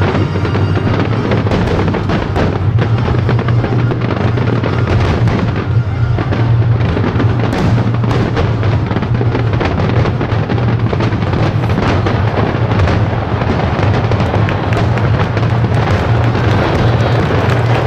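Japanese aerial fireworks fired as a starmine barrage: shells bursting one after another so fast that the booms and crackles overlap into one continuous, loud roll with no pause.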